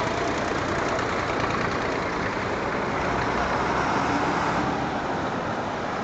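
Vintage farm tractor engines running steadily: a small old tractor passes close by, and a large four-wheel-drive tractor approaches.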